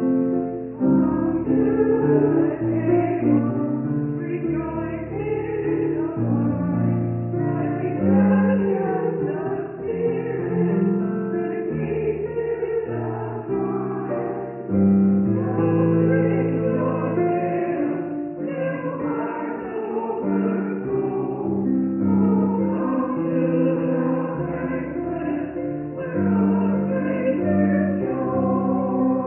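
A choir singing a hymn in chorus, with held notes that change every second or so.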